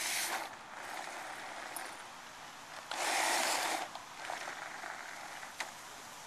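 Wild Thumper six-wheel-drive robot chassis driving on concrete: its gearmotors and knobbly rubber tyres make a rasping noise in bursts, the loudest about three seconds in, with a few sharp clicks.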